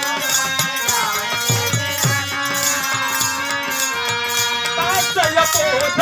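Devotional folk song accompaniment: held instrumental notes over a quick, even rattling beat and low drum thumps. A man's singing voice comes in near the end.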